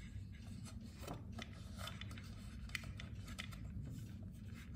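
Faint scattered clicks and light scrapes from hands handling an aluminium pressure cooker lid, over a low steady hum.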